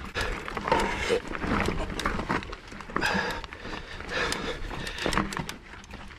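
Mountain biker breathing hard in repeated gasps under effort, over the clatter and clicks of the bike's tyres and drivetrain on rock.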